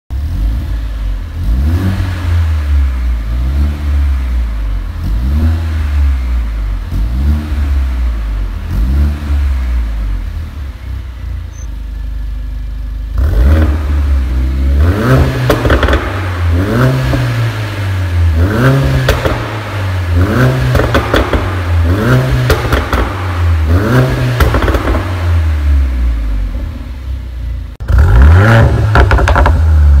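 Mercedes-AMG GLA45's 2.0-litre turbocharged four-cylinder revved repeatedly through an aftermarket Armytrix cat-back exhaust, short blips about once a second, each rising and falling in pitch. From about 13 s in the revs come harder and louder.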